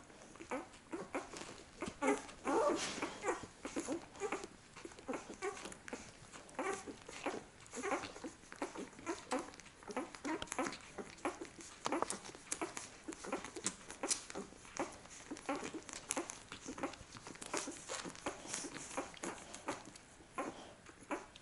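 A litter of week-old husky puppies squeaking and grunting as they nurse, short sounds coming several times a second with small clicks between them.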